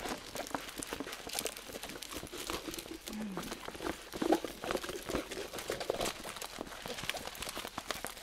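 Plastic packaging crinkling and crackling as it is handled, with many small irregular crackles.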